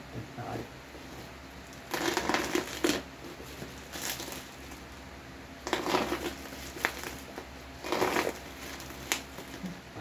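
Parcel packaging being cut and pulled open: plastic wrapping and bubble wrap crinkling in several short bursts.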